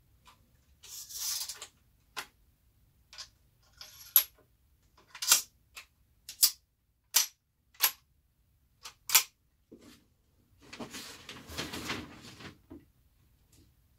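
Sharp metallic clicks, roughly one a second, from a brass-framed lever-action rifle in .45 Long Colt as cartridges go into its magazine tube, then a longer rustle of handling near the end as the rifle is shouldered. No shot is fired.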